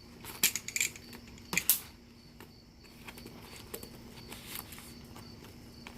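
Handling noises of a cosmetic bag being opened: a few brief clusters of clicks and rustles over a faint steady hum.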